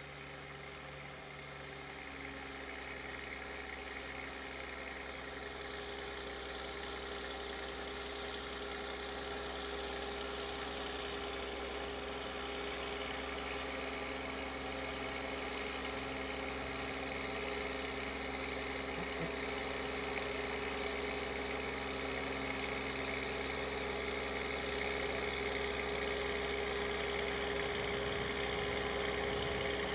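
Dvořák PB400 tractor's diesel engine running steadily under load as it pulls a plough through the field, growing steadily louder as it draws nearer.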